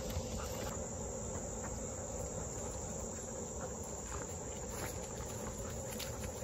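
Steady chorus of insects, with soft footsteps on a dirt trail scattered with leaves.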